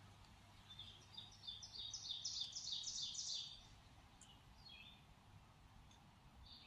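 A songbird singing a run of short, high, repeated notes, about four a second, that grows louder and stops about halfway through, followed by a few faint single chirps.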